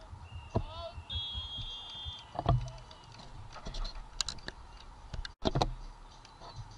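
Beach volleyball play: sharp smacks of hands striking the ball, the loudest about two and a half seconds in, with a few lighter clicks and thuds after, over a low wind rumble on the microphone. A steady high-pitched tone sounds in the background during the first two seconds.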